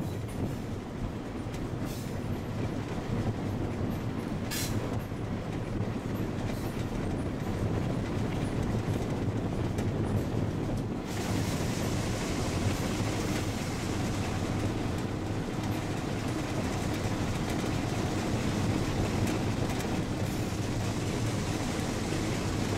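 Passenger train car running along the track, heard from an open window: a steady rumble of wheels on rail with a few faint clicks. About halfway through, a brighter hiss of rushing air comes in.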